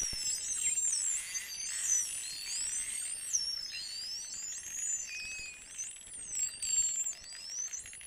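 A pod of false killer whales whistling during a hunt: many high whistles overlap and sweep up and down, with a few scattered clicks.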